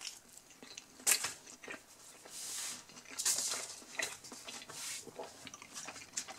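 Crinkling and rustling of a folded paper menu being picked up and opened, with soft mouth sounds of chewing pizza and a sharp click about a second in.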